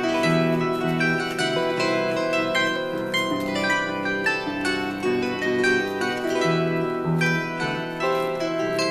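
Instrumental background music: a gentle melody of plucked string notes.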